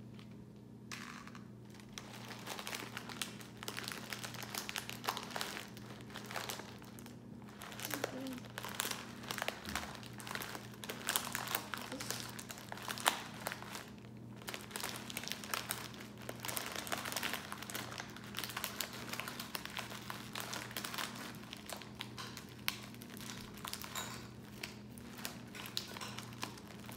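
Plastic crinkling as a clear plastic bag full of snack packets is rummaged through and the packets are handled, a dense, irregular run of crackles starting about a second in.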